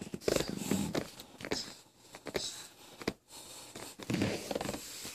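A toddler chewing and smacking on mandarin orange segments, with irregular small clicks and rustles.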